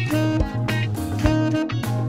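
Tenor saxophone playing a blues exercise line of short held notes over a blues backing track with a bass line and a steady beat.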